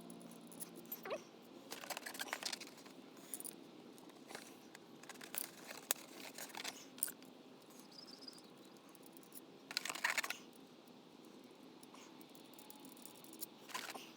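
Intermittent small clicks, taps and scrapes of hand tools and bolts being handled while stripping down a motorcycle engine, with a longer scraping rustle about ten seconds in.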